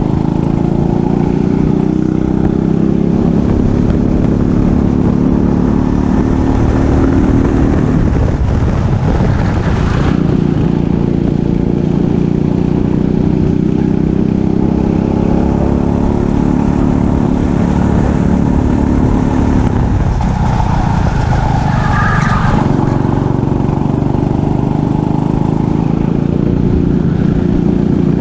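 Racing kart engine at full throttle, its pitch climbing slowly. It drops off twice, about eight seconds in and again about twenty seconds in, as the kart slows for corners, then picks up and builds again.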